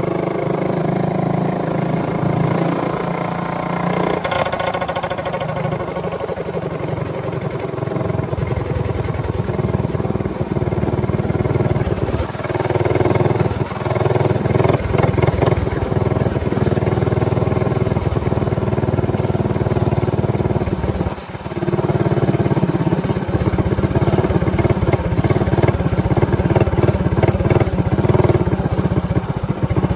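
Motovox minibike's modified Predator 224cc single-cylinder engine running under throttle while riding, its revs rising and falling. There is a brief drop in engine sound about two-thirds of the way through.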